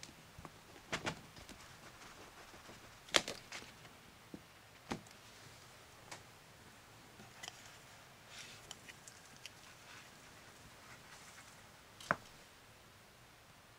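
Scattered light taps and clicks of plastic bread-stamp molds being handled, pressed onto and lifted off a slice of sandwich bread, with faint rustling; the sharpest tap comes about three seconds in and another near the end.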